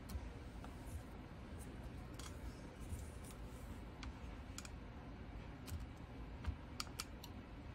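Faint, scattered light clicks and taps from a small travel iron being handled and pressed on a wool pressing mat, over a low steady room hum.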